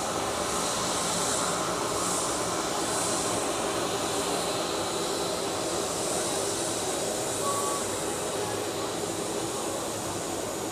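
Jet engines of a Boeing 737 airliner at taxi power as it rolls past: a steady jet hiss with a faint high whine.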